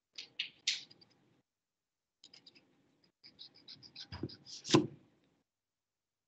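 Light clicking and tapping heard over a video-call microphone, in quick runs of several clicks a second, with two louder knocks a little after four seconds in. The call's noise suppression then cuts the sound to dead silence.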